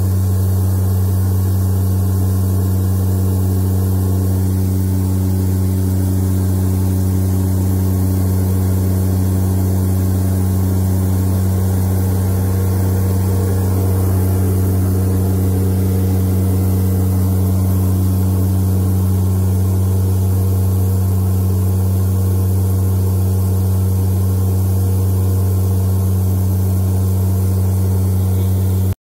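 Aircraft engines droning steadily in flight, heard from inside the cabin: a constant deep hum with a second, higher hum above it.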